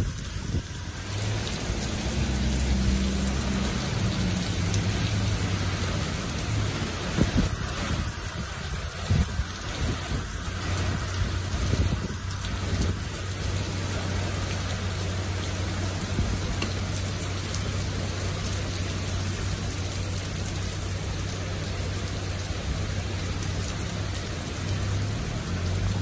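Heavy rain pouring down on a street and pavement, a dense steady hiss with sharp nearby drop hits now and then between about 7 and 13 seconds in. A low steady hum runs underneath.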